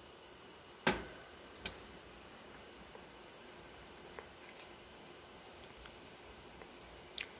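Crickets trilling steadily in a high, even tone, with three sharp knocks: a loud one about a second in, a smaller one shortly after, and another near the end.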